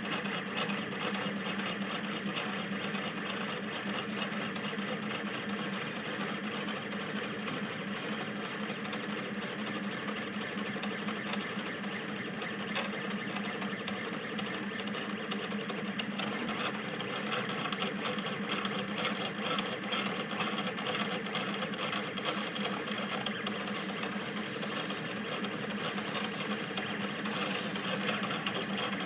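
Rostock delta 3D printer printing at high speed: its stepper motors buzz and whine continuously, the sound shifting rapidly as the print head darts back and forth laying infill.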